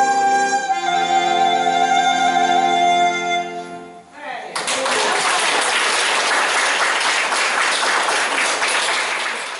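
A men's vocal ensemble with accordion holds the final chord of a song, which dies away about four seconds in. Then the audience applauds steadily.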